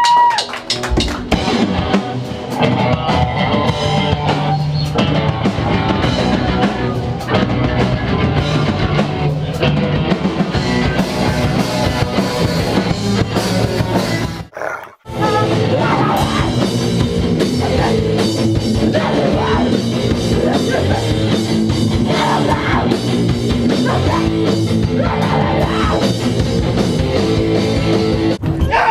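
A rock band playing loud music with a drum kit and guitar. About halfway through the sound cuts out for a moment, then the music resumes.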